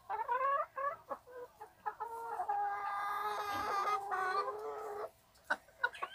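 Chickens clucking, then one long, steady call from about two to five seconds in.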